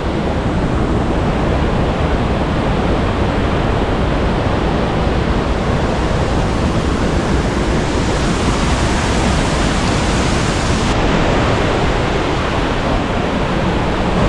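Waterfall: a steady, loud rush of falling water, an even noise with no breaks; it brightens about eight seconds in.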